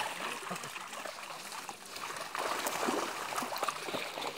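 Water splashing and trickling as a wet fishing drag net is hauled out of a pond across the mud, with irregular small crackles and splashes.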